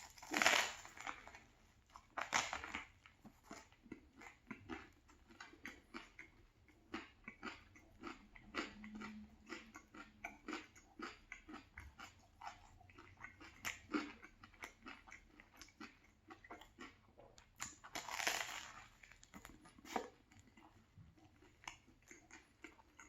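Close-up chewing and biting of a banh mi sandwich on a crusty baguette: a steady run of small crunching clicks, with louder crunches shortly after the start, a couple of seconds in, and again near the end.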